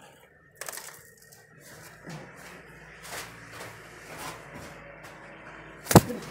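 Brooding pigeon in its nest, with scattered rustles and clicks of feathers and nest litter. About six seconds in comes one sharp slap as the pigeon strikes out with its wing in defence of the nest.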